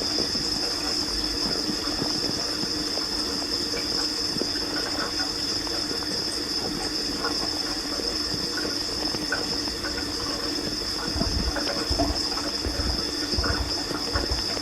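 Dishwasher running mid-cycle, heard from inside the wash tub: a steady hiss of water spraying over the hum of the pump. There are some low thumps near the end.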